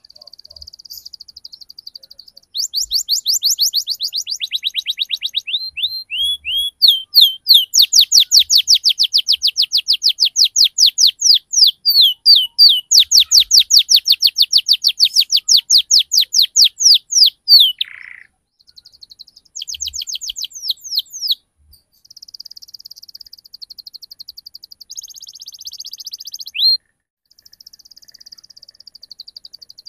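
Domestic canary singing a long rolling song: fast trills of rapidly repeated downward-sweeping notes, broken by short pauses, with buzzier chattering passages near the end.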